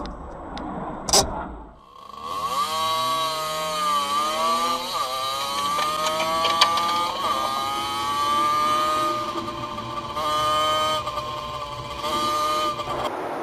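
Motorcycle engine accelerating hard: its pitch climbs, drops back at gear changes about two and four seconds after it starts, then holds high and steady. A short knock comes about a second in, before the engine is heard.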